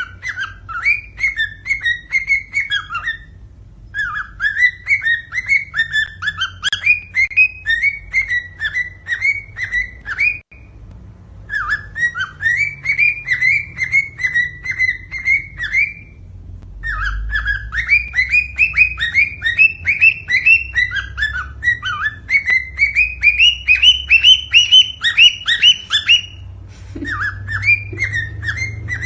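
Cockatiel singing: bouts of quick, repeated whistled notes a few seconds long with short breaks between, one bout climbing in pitch near the end. This is male courtship song of the kind played to get cockatiels to breed.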